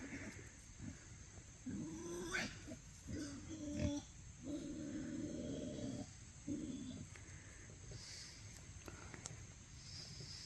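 Pigs making a run of low, drawn-out grunts, several in a row between about two and seven seconds in, then quieter.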